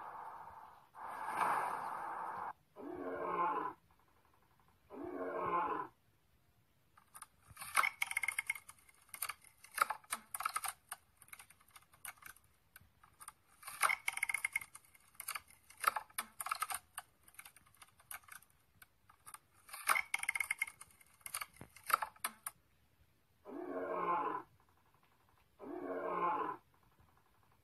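Sound effects of animated fantasy creatures from an augmented-reality card app: short pitched creature calls about a second each, two near the start and three about two seconds apart near the end. In between come three stretches of rapid crackling clicks, each a few seconds long.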